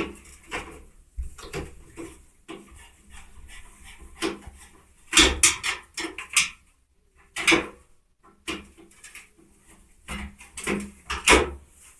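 Screwdriver at work on the bolts of a washing machine's front panel: irregular clicks, scrapes and knocks of the tool against the metal casing, loudest about five seconds in and again near the end.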